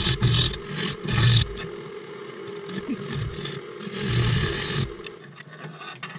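A turning tool cutting a dried wooden root blank spinning on a Nova DVR Saturn lathe, a rough scraping, shaving noise that comes in loud bouts, strongest in the first second or so and again around four seconds in. The cutting stops about five seconds in, leaving the lathe spinning more quietly.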